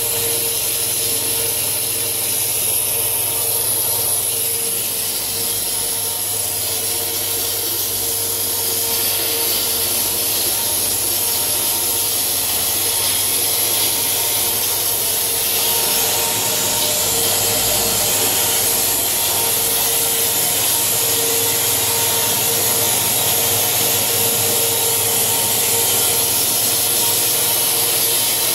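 A machine running steadily: an even, high hiss over a constant hum.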